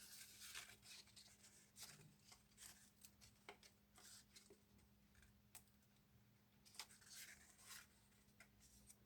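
Faint paper handling: brief rustles and light snips and clicks, scattered irregularly, as paper is cut and folded by hand, over a faint steady hum.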